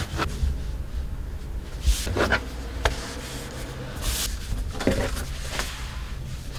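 Kitchen work sounds: scattered rubbing and light knocks over a steady low hum.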